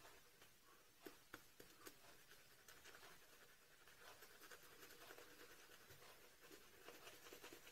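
Faint, quick scratchy swishing of a shaving brush working lather over a bearded face, with a few soft clicks between about one and two seconds in.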